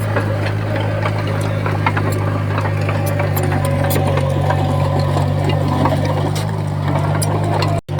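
Komatsu D20P bulldozer's diesel engine running steadily, with scattered short clanks and knocks over the drone. The sound cuts out for a moment just before the end.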